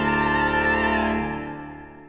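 Allen Historique III digital organ, with bass clarinet, holding a loud sustained chord with a deep bass. The chord is released about a second in and dies away in a reverberant tail.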